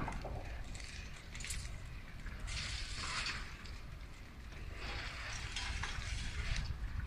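Distant crackling and hissing of a large building fire, swelling twice into longer stretches of louder hiss, over a steady low rumble.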